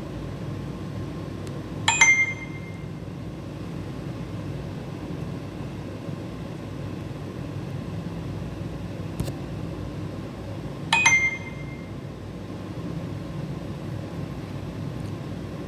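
Two short bell-like electronic chimes, about nine seconds apart, over a steady low background hum.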